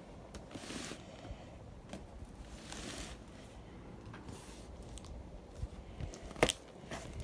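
Faint rustling and handling noises, with a sharp click about six and a half seconds in.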